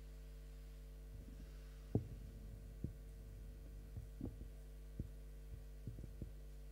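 Microphone handling noise: a string of dull knocks and rubs, the loudest about two seconds in, as the microphone is lifted out of its stand clip and held in the hand. A steady electrical mains hum runs underneath.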